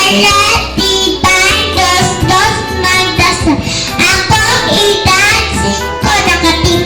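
A song with a high singing voice over sustained bass notes.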